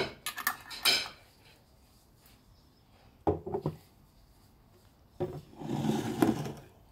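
Glass jars, a lid and a glass clinking and knocking against each other and a wooden countertop as they are handled. The sound comes in three bunches of short knocks, the longest and loudest near the end.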